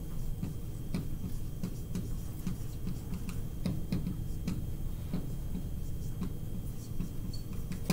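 Dry-erase marker writing on a whiteboard: a string of irregular light taps and short strokes, over a low steady hum.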